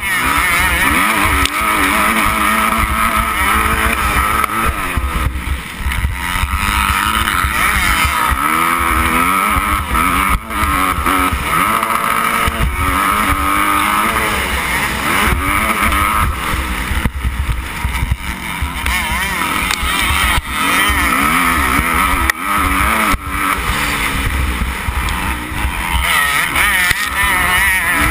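Motocross bike engine heard from on board, revving up and dropping back again and again as the rider accelerates and backs off around the track. Wind buffets the microphone throughout.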